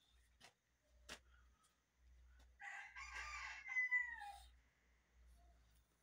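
A rooster crowing once, a call of about two seconds that ends in a falling note. There is also a brief click about a second in.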